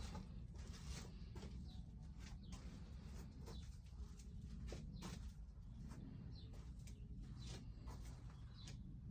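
Faint garden birds chirping now and then, over a steady low rumble.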